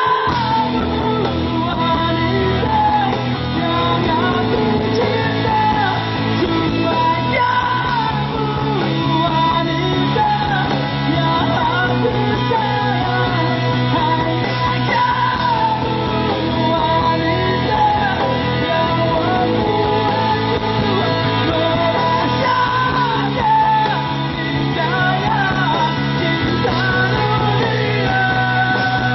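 Rock-style band music with a singer, over bass notes held for several seconds at a time.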